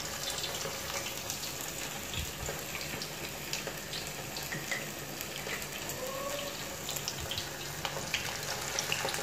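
Chicken kofta balls deep-frying in a pan of hot oil: a steady sizzle with many small crackles.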